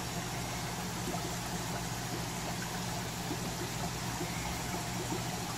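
Steady low hum with the continuous fizz and bubbling of air rising through aquarium water, as from air-driven filters or air stones in a rack of fish tanks.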